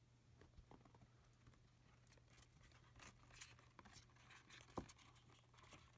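Faint scratching and light tapping of a hamster's claws gripping and climbing a perforated plastic laundry basket, growing busier after about two seconds, over a steady low hum.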